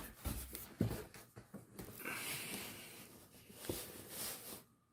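Cardboard shipping box being handled, with scattered light taps and scraping rustles, fading to quiet near the end.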